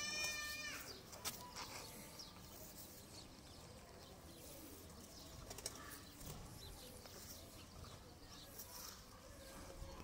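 A drawn-out animal call with several clear upper tones ends within the first second. After it come only faint rustling and small clicks as a caught hoopoe is handled in the hand.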